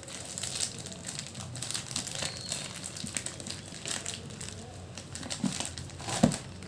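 Paper and plastic packaging being torn and crumpled off a box by hand: an irregular run of crinkling and rustling, with one louder bump near the end.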